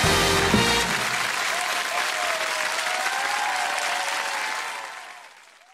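Studio audience applauding, with some cheering, as a few bars of music end about a second in; the applause fades away near the end.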